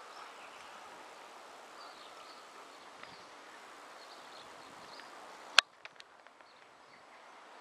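Faint outdoor background hum with a few faint, distant bird chirps. About five and a half seconds in there is a single sharp click, after which the background goes quieter.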